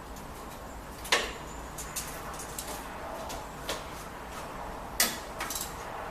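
Sharp metallic clicks and knocks from socket tools and fasteners being worked on a car's suspension strut top: a few separate knocks, the loudest about a second in and near the end, with lighter clicks between.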